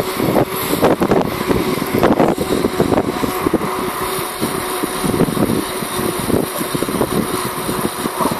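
Wind buffeting a phone microphone: a loud, gusty rumble with irregular flutter.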